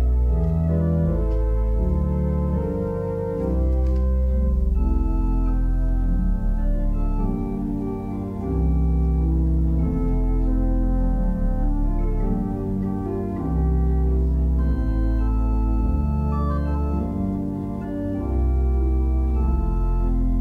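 Organ prelude: slow, held chords over deep bass notes, the chords changing every second or two.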